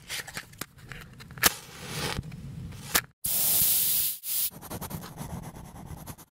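Logo-intro sound effects of scratchy scraping and rubbing, with two sharp clicks. About three seconds in comes a loud spray-like hiss lasting just over a second, then fainter scratching until the sound cuts off suddenly.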